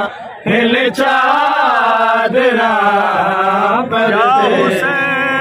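Male voice chanting a Punjabi noha, a Shia lament for Karbala, unaccompanied, in long drawn-out wavering notes with short breaks for breath.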